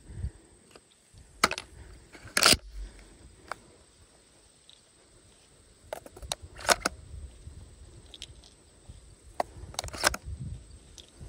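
12-gauge shotgun shells being pushed into the Tavor TS12's magazine tubes through the loading port, each one giving a sharp click or clack. A few such clicks come a few seconds apart, with lighter handling clicks of hands on the polymer stock in between.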